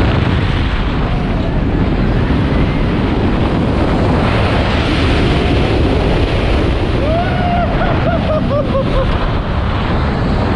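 Strong wind rushing over the microphone of a camera riding a steel roller coaster at speed, with the train running underneath. Riders give a few short screams and whoops about seven to nine seconds in.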